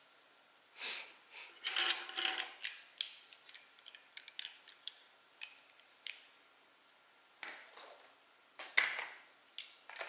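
Drawing tools being handled on a tabletop: irregular light clicks, taps and small clatters with a few short rustles. The sounds are busiest in the first few seconds and again near the end.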